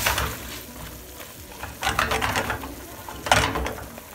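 A spatula stirring pecans through bubbling caramel in a hot pan: sizzling and scraping in short hissy bursts, loudest about three and a half seconds in.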